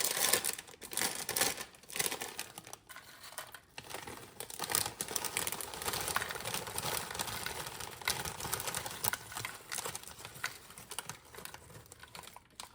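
Small snack chip bags crinkling and crackling as they are handled, fading out near the end.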